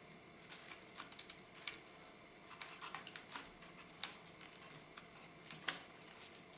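Faint, scattered small clicks and taps of fingers working on the wireless card inside an open laptop, pressing the tiny Wi-Fi antenna cable connectors back onto their sockets. There is a short cluster of clicks a few seconds in and single sharper ticks near the middle and toward the end.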